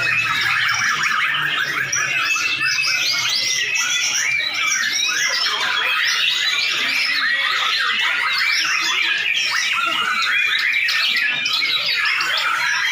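Many white-rumped shamas singing at once: a dense, unbroken chorus of fast whistles and chattering phrases.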